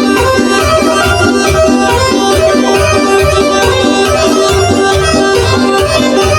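Instrumental music with a steady, fast beat in the bass and sustained melody notes above.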